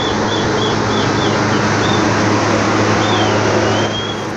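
A motor or machine running steadily with a low hum and hiss, with high short chirps repeating about three times a second over it and one longer gliding chirp after about three seconds. The hum and hiss fade near the end.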